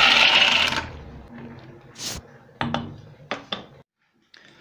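Dry rigatoni poured from a bowl into a stainless steel pot of boiling salted water, a loud rushing clatter and splash that dies away about a second in. A few light metallic clinks and knocks follow.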